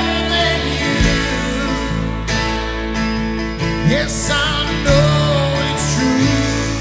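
Live worship band playing: acoustic guitar strumming over electric guitar, bass and keyboards, with a voice singing the melody.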